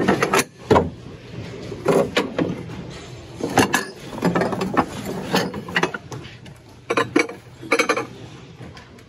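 Glass dishes and lids clinking and knocking against each other and the plastic bin as they are handled, in a string of separate strikes.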